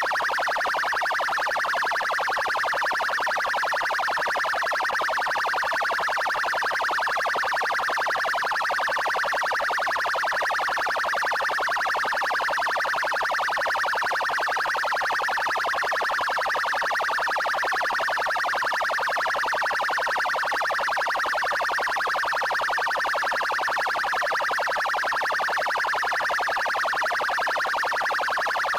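Police electronic siren sounding its 'trail' tone: a fast, continuous warble held at a steady level throughout.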